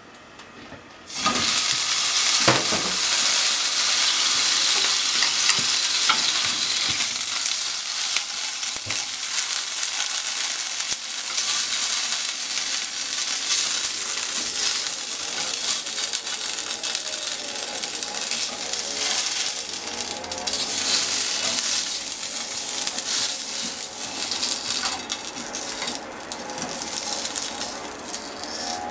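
Small sausages hit a hot frying pan about a second in and sizzle steadily. Wooden chopsticks make a few light taps as they turn them.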